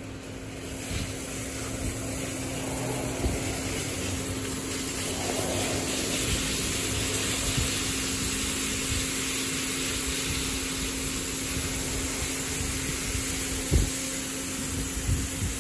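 Washworld Revv touchless car wash gantry spraying water at high pressure onto a car: a steady hiss that builds up about a second in, over a steady pump hum. A few short knocks come through, the loudest near the end.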